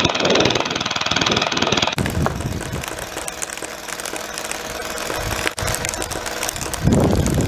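Airsoft PKP machine gun firing full-auto at mesh masks: a fast, continuous rattle that changes character about two seconds in.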